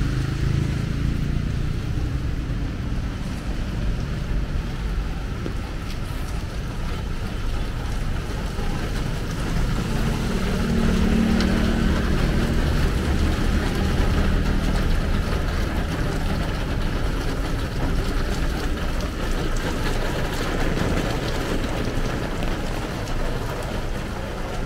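City street traffic on a wet road: car engines running and passing, with a steady hiss. A vehicle's engine hum grows louder about ten seconds in, then eases.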